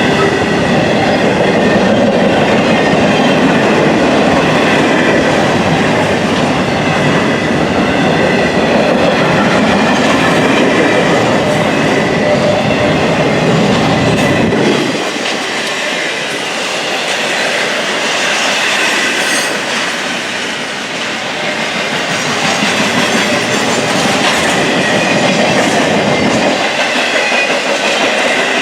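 Intermodal freight cars of a Norfolk Southern container train rolling past: steady wheel-on-rail noise with clickety-clack over the rail joints and a thin, steady high wheel squeal. The deep rumble drops away about halfway through and comes back near the end.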